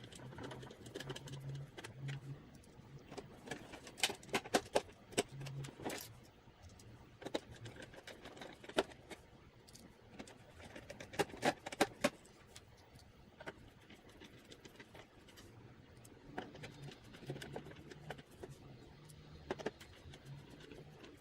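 Faint scattered clicks and light knocks of screws being driven in to fasten a Commodore 64 keyboard into its plastic case.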